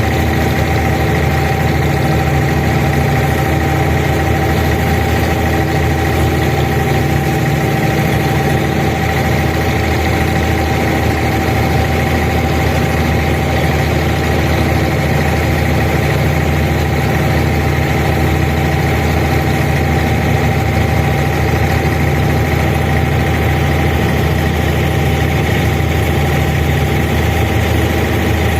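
An abra water-taxi's diesel engine running steadily, a loud, even drone with a constant mid-pitched whine over it.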